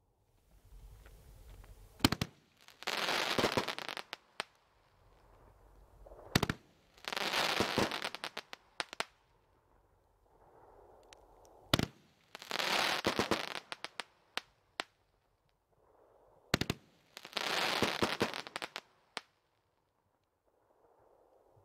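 Firework cake firing four shots, about every four to five seconds. Each is a faint rush as the shell rises, a sharp bang, then about a second and a half of dense crackling that thins out into scattered pops.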